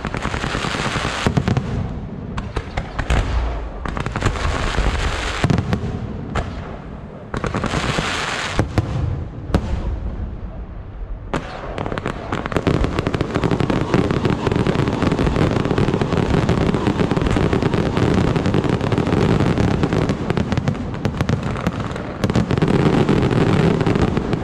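Aerial fireworks display: shells launching and bursting overhead in separate volleys of sharp bangs, then a dense, continuous barrage of bangs and crackling from about twelve seconds in.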